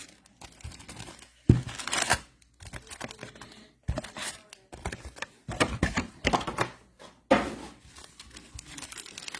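Plastic wrapping and cardboard packaging of a baseball card box being torn open and handled: irregular crinkling and tearing with sharp clicks and taps.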